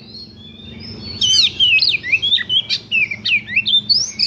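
Oriental magpie-robin singing. After a quiet first second it breaks into a loud, rapid phrase of varied whistles and notes that slide up and down in pitch.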